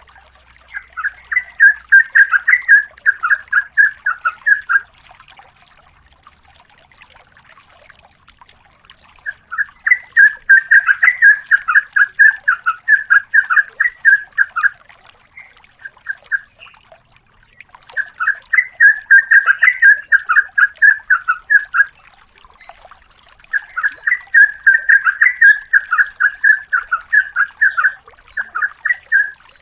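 Yellow-vented bulbul (trucukan) singing long, rapid rattling phrases, four extended bouts of quick repeated notes with short pauses between them. Faint, thin high chirps sound alongside.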